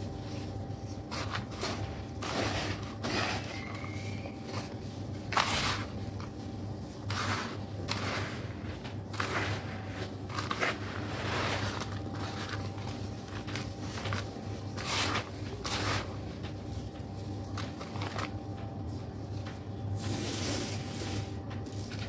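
Gloved hands crumbling lumps of dry red sand and letting it pour back onto loose sand: irregular soft crumbling swishes and trickles, over a steady low hum.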